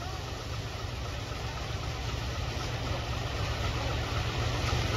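Tractor diesel engine running steadily, its low rumble growing gradually louder.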